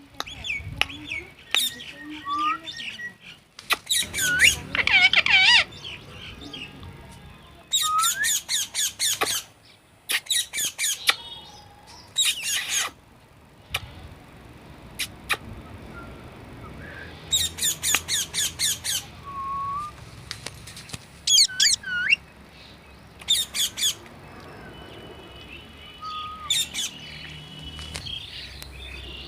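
A parrot squawking in repeated bursts of rapid, shrill calls, several runs of quick notes spaced a few seconds apart, with softer chattering between them.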